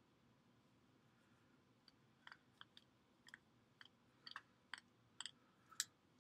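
Faint, irregular clicks of a screwdriver working the screws out of a plastic NEMA 5-15P electrical plug. About a dozen clicks start some two seconds in, with the sharpest near the end.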